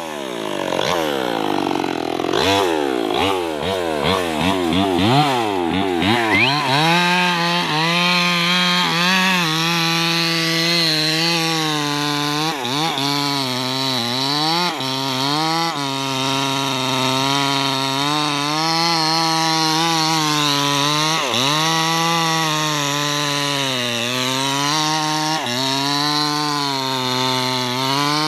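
Maestro 6500L two-stroke chainsaw cutting into a thick acacia trunk under load. The engine pitch swings up and down for the first several seconds, then holds steady at high revs, sagging briefly a few times as the chain bites into the hardwood.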